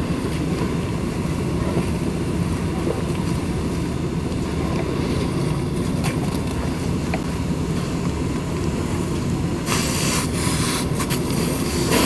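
Fire hose spraying a jet of water onto smouldering, burnt debris, over a steady low engine rumble. The hiss of the spray grows louder about ten seconds in.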